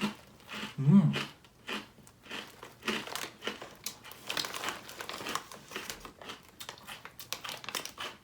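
Crunchy chips being bitten and chewed close to the microphone: a run of irregular dry crackles, loudest about a second in.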